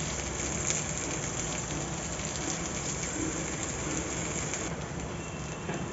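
Steady hiss with faint, scattered crackling from a sizzler plate heating over a gas burner until it is very hot; the higher part of the hiss drops away about five seconds in.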